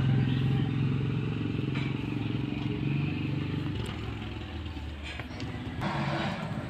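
A small engine running steadily with a low, pulsing hum that fades out a little under four seconds in. Near the end, rustling and scraping as an insulated pipe bundle is pushed through a hole in a concrete wall.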